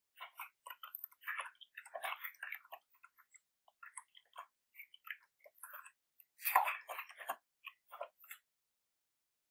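Typing on a computer keyboard: an irregular run of quick key clicks, with a louder cluster of keystrokes about six and a half seconds in.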